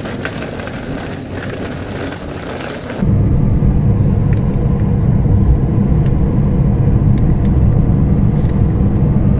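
Wheels of a rolling suitcase on a paved lane for about three seconds, then a sudden change to the steady low rumble of a car driving, heard from inside the cabin, with a few faint ticks.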